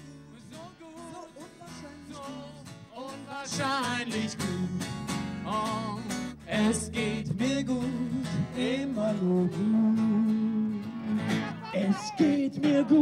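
A man singing to his own strummed acoustic guitar. It starts softly and grows louder about three to four seconds in.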